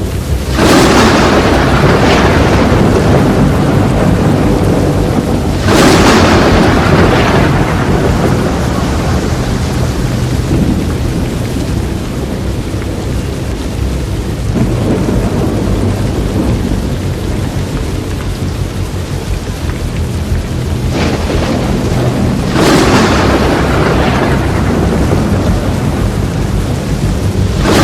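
Thunderstorm: steady heavy rain with rolling thunder. Loud cracks come about a second in and at about six seconds, then two more close together a little past twenty seconds, each rumbling away slowly.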